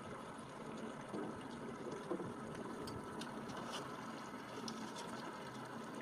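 Steady rushing, watery background noise with a faint constant hum under it and a few faint clicks.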